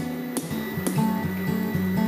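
Background music with a steady, repeating bass line and a regular beat, with a couple of sharp knocks.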